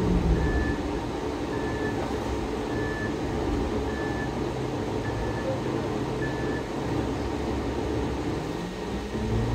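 Diesel bus engine idling, heard inside the cabin, with the turn-signal beeper giving a short high beep about once a second. Near the end the engine note rises as the bus starts to pull away on the green light.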